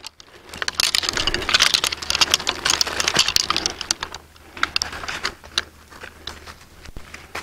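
Premier 1 PoultryNet electric poultry netting being unrolled and shaken out: a quick, clattery run of clicks and rustling from the plastic netting and its posts. It thins out after about four seconds.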